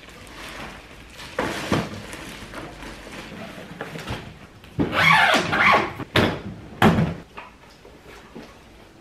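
A hard-shell suitcase being packed and shut on a wooden floor: knocks and thumps of the lid and case, with a longer scraping, rustling stretch about five seconds in.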